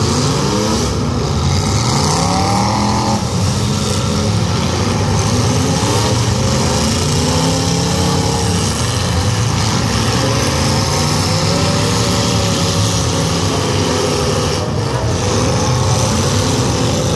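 Several demolition derby cars' engines revving at once, loud and continuous, their pitches rising and falling over and across one another as the cars push and ram.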